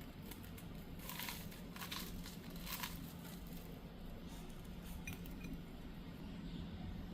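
Packaging being crinkled and handled, in three short bursts within the first three seconds, over a faint steady low hum.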